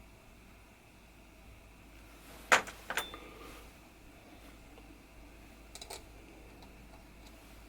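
Two sharp knocks about half a second apart, then a few faint clicks a few seconds later: small hard parts being handled and set down on a workbench.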